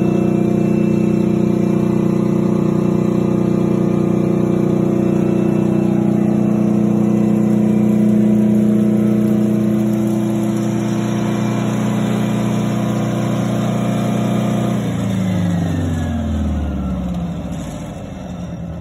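Kohler 400 kW diesel generator engine running steadily, then shutting down about fifteen seconds in. Its note drops in pitch and fades as it spins down over a few seconds, and a higher whine falls away with it.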